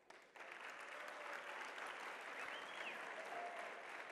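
Audience applauding, starting suddenly about a third of a second in and carrying on steadily.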